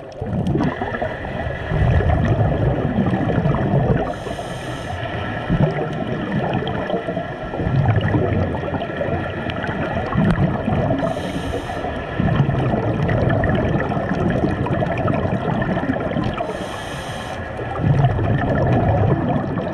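Scuba breathing underwater through a demand regulator: a short hiss of inhaled air, then a longer low rumble of exhaled bubbles, the cycle repeating about every six to seven seconds.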